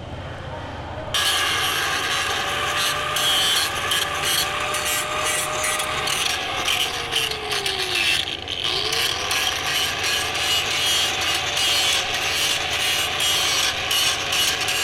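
Angle grinder cleaning an aluminium stick weld, starting about a second in: a steady motor whine under a harsh scraping rasp. Around eight seconds in the whine sags and the scraping drops out briefly, then both pick back up.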